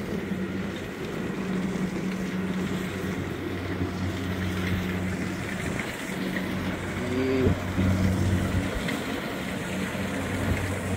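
An engine running in the open with a steady low hum that drops out briefly a few times, under wind noise on the microphone. A short pitched sound comes a little past halfway.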